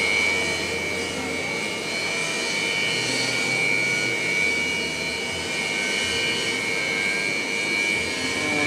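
Jet aircraft turbines running on the ground: a steady high-pitched whine over an even rushing noise.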